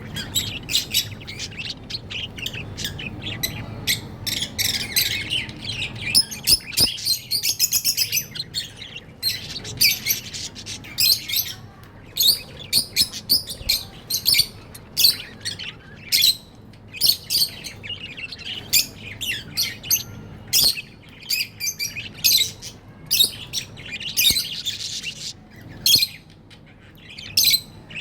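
Pet budgerigars chirping and chattering, with many short sharp calls and squawks in quick succession, thickening into busier warbling chatter at times.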